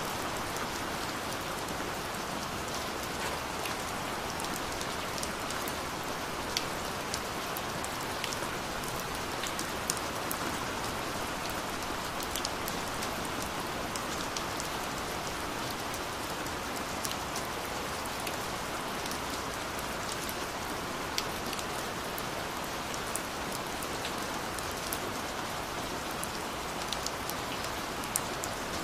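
Gentle rain falling steadily: an even hiss with scattered sharper drops ticking at irregular moments.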